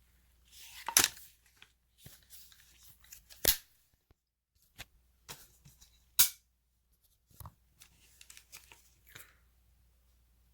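Handling noise from an AR-15 rifle being moved and shouldered: a series of sharp clicks and knocks with rustling between. The loudest knocks come about a second in, three and a half seconds in and about six seconds in.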